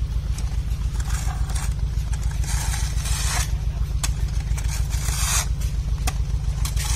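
A heavy diesel engine idling with a steady low throb, while shovels scrape mud across the road surface in several short strokes; a couple of sharp knocks stand out about four and six seconds in.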